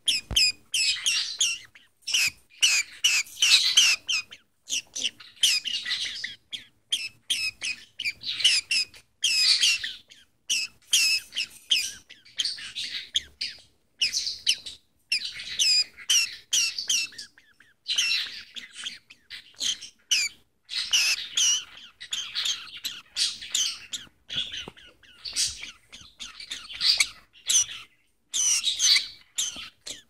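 Budgie chattering: a fast run of high chirps and warbles, in bursts of a second or two with short pauses between them.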